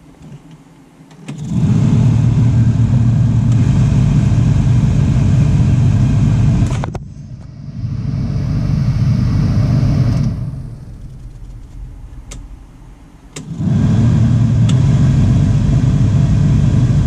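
Jeep Wrangler TJ heater blower motor under the dash, switched on and running at high speed with a steady hum and rush of air. It changes after a click to a quieter, hissier setting, cuts down, then comes back on at full speed. This is the reinstalled original motor being test-run for its ticking noise.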